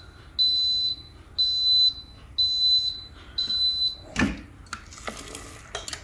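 Instant Pot Duo Evo Plus pressure cooker beeping four times, a high steady half-second beep about once a second, while its display reads "Lid" as the lid is turned open. Then a clunk and a short scrape as the lid is lifted off.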